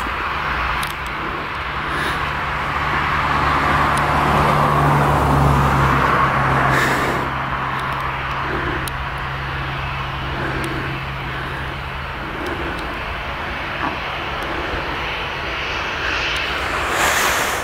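Jet engines of a Ryanair Boeing 737 running at takeoff power, a steady engine noise with a low hum, swelling about five seconds in and easing as the hum fades out past the middle.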